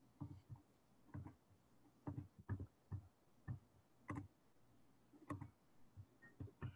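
Faint, irregular clicking of a computer mouse and keyboard, a dozen or more short clicks.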